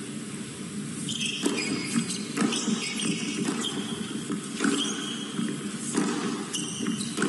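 Tennis rally: about five crisp racket-on-ball strikes roughly a second apart, with tennis shoes squeaking on the hard court between shots.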